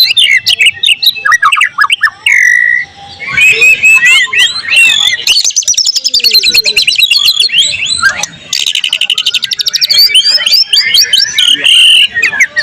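White-rumped shama (murai batu) singing a loud, varied song of whistled glides and rapid trills, with a fast buzzing run about eight seconds in; its song is filled with phrases mimicked from other songbirds.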